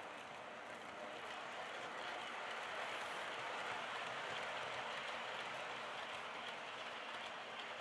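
OO gauge model train, a Hornby Class 60 diesel locomotive hauling tank wagons, running on a circuit of track: a steady rolling whirr of motor and wheels on the rails, swelling a little around the middle as the wagons pass closest.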